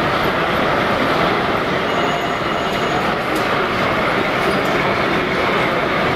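H0-scale model electric locomotive running slowly along the track, a steady train-like rushing noise without pauses.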